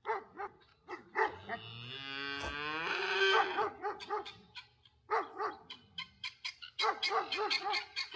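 A cow mooing once, a long call that rises in pitch and grows louder, about two seconds in. Around it come runs of rapid, repeated dog barking.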